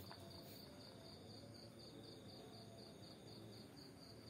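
Faint cricket chirping, a high pulsed chirp repeating about four times a second over a steady high trill.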